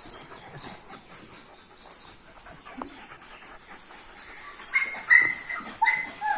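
A dog whining in several short, high-pitched cries that begin about three-quarters of the way in, after a quiet stretch.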